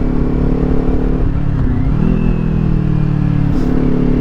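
A Kawasaki Ninja 400's parallel-twin engine, still on its stock exhaust, running under way as the bike is ridden. The engine note dips about a second and a half in and settles lower, then steps back up near the end.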